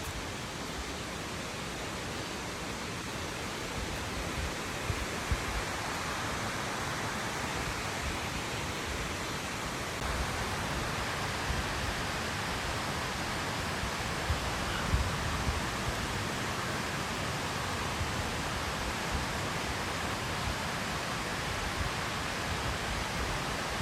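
Steady rushing of a nearby waterfall and its creek, with a low rumble underneath and a few faint knocks.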